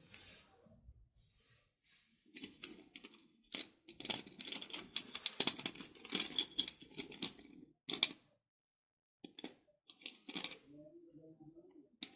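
Slate pencil being bitten and chewed: a dense run of crisp crunching and crackling for several seconds, then a loud sharp crack and a few more separate cracks.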